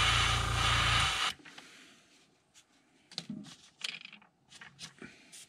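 Gravity-feed airbrush spraying paint: a steady hiss over a low hum that cuts off about a second in. After it, a few light clicks and knocks as the airbrush and lure holder are handled.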